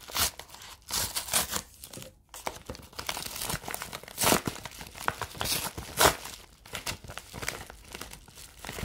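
A paper padded mailer being handled and torn open: irregular crinkling and tearing of paper and tape, with a few sharper, louder rips.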